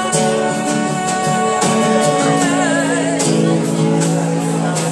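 Live acoustic guitar and drum kit playing a slow song while a male voice sings, holding long notes that waver into vibrato about halfway through. The drums keep a steady beat of sharp hits.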